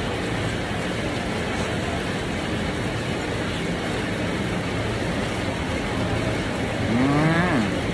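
Steady rain heard as an even hiss. Near the end comes a short voiced hum that rises and then drops in pitch.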